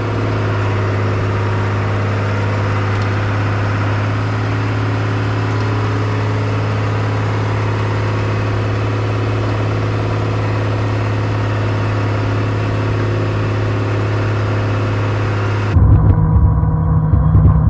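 1998 Bombardier BR-160 snowcat's engine running steadily while the machine pushes snow with its front blade. Near the end the sound changes abruptly to a louder, deeper rumble.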